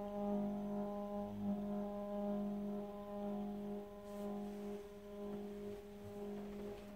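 Rhino Motion motorized camera slider's motor running at speed 4 with a loud, steady, multi-toned hum. The owner takes the noise for abnormal, though Rhino support called it normal.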